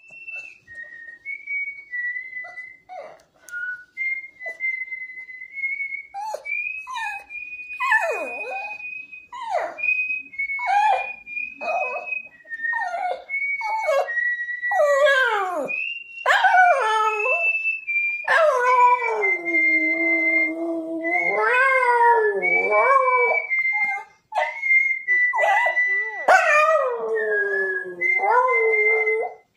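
A man whistles a tune of short notes while a small white dog howls along. Its howls slide down in pitch, short at first and longer and more drawn out from about halfway in.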